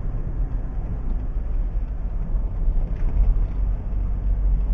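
Steady low rumble of a car driving on a rough, patched road, heard from inside the cabin.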